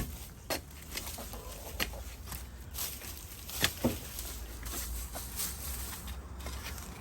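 Shovel digging into dirt: irregular scrapes and knocks of the blade, the strongest about three and a half seconds in.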